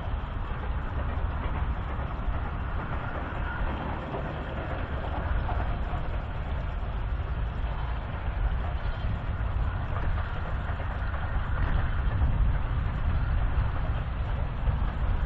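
Distant steam train running along the valley, heard under a heavy, uneven low rumble of wind on the microphone.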